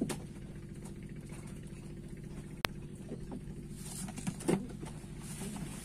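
Steady hum of an engine running, with a sharp click about two and a half seconds in and a couple of light knocks near the end.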